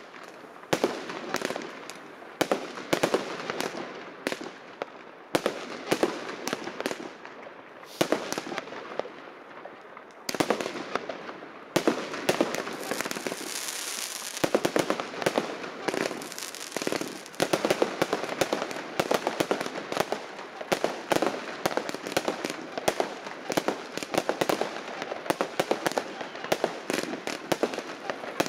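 Fireworks going off: irregular sharp bangs and crackling from aerial bursts, growing into a dense, almost continuous crackle in the second half. A steady hissing spray joins around the middle.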